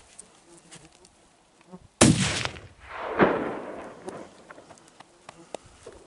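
A single rifle shot cracks out sharply about two seconds in, during a muskox hunt, followed a second later by a longer rumble that dies away.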